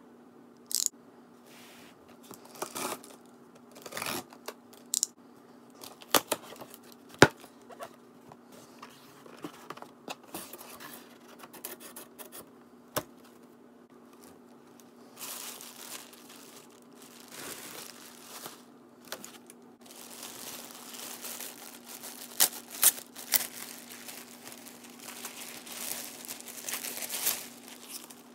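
Packing tape on a cardboard box being cut and torn open with a utility knife, with scattered sharp clicks and tearing sounds as the flaps are pulled back. From about halfway on comes a long stretch of crinkling as a clear plastic bag and foam wrapping are handled and pulled off.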